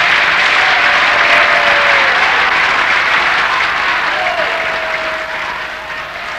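Large concert audience applauding and cheering, a dense wash of clapping that slowly dies down toward the end.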